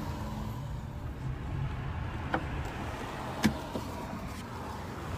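Steady low engine and road rumble heard inside a car, with two sharp clicks about a second apart just past the middle.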